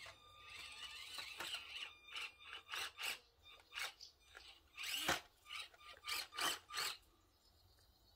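Axial SCX24 1:24-scale crawler's tiny electric motor and gears whirring in a string of short throttle bursts as it climbs over logs, with tyres scraping on the wood. The bursts stop about seven seconds in.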